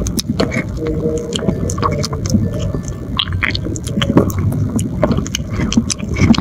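Cat chewing and smacking on mashed wet canned cat food in a plastic bowl, picked up close by a microphone clipped to the bowl. It makes irregular wet clicks and squishes.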